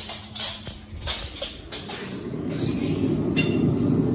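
Coffee heating to the boil in a small cezve on a glass-ceramic hob: a low rumbling bubbling that starts about halfway and grows louder as the foam rises. A few light clicks and knocks come before it.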